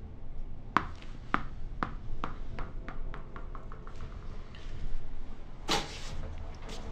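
A small hard object bouncing on a hard floor, the bounces coming quicker and fainter as it settles. Near the end, a short loud burst of hiss.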